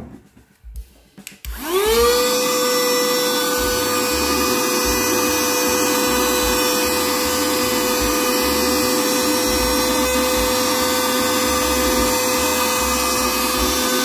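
Handheld mini portable vacuum cleaner switched on after a few handling clicks: its motor whine rises quickly about a second and a half in, then runs as a steady high whine with a rush of air while it sucks up debris.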